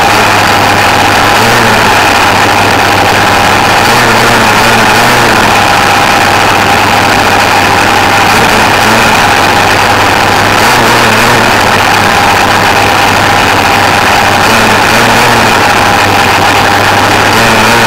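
Radio-controlled car's motor and drivetrain running continuously, heard close up from a camera mounted on the car: a steady whine over a low hum and dense mechanical noise.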